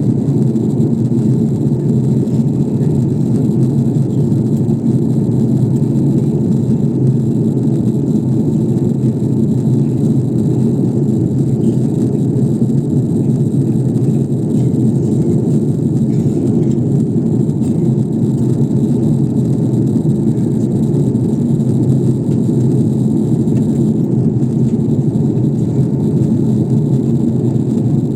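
Airliner cabin noise after takeoff: a steady, low drone of jet engines and airflow, heard from inside the passenger cabin.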